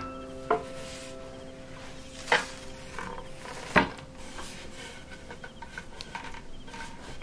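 Light wooden knocks and clicks as bamboo furniture parts are handled and fitted: three sharper knocks in the first four seconds, then softer ticks. Faint piano notes fade out under them.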